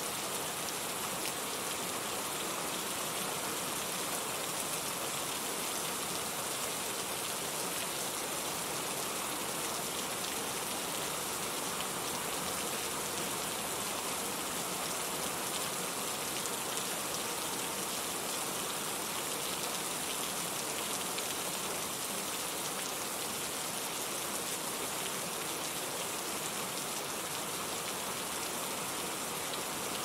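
Steady rain falling, an even hiss of many drops that holds unchanged throughout.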